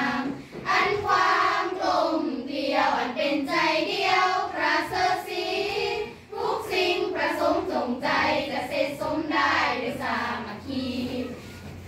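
A group of schoolgirls singing a song together, with a short break between phrases about six seconds in.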